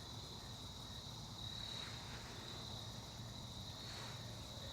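Faint insect chorus: a steady, unbroken high-pitched trill, with a low rumble underneath.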